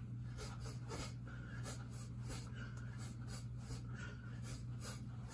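Faint rhythmic sounds of a man shadowboxing: short breaths and quick rustles of movement, about three a second, over a steady low hum.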